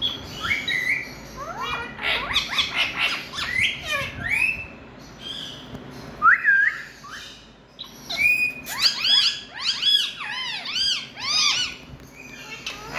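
Indian ringneck parakeet calling: a string of sharp rising squawks and chirps, then a fast run of repeated arching calls in the second half.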